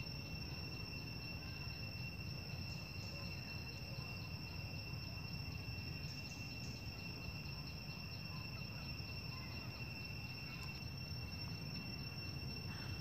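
Insects trilling in a steady, high-pitched chorus that does not let up, over a low steady rumble.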